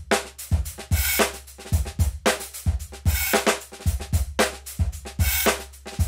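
Sampled acoustic drum kit (DS Drum, RCS Essentials library, close mics) playing a groove of kick, snare and hi-hat, with a cymbal wash about every two seconds over a steady low tone.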